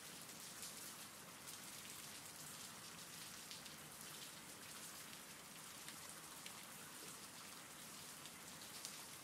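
Faint, steady rain ambience: an even hiss of falling rain with scattered small drop ticks.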